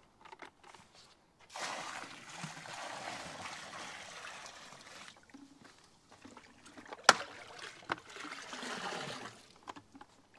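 Liquid pool flocculant poured from a black plastic tub into the pool water, splashing in two pours of a few seconds each. A single sharp knock comes about seven seconds in.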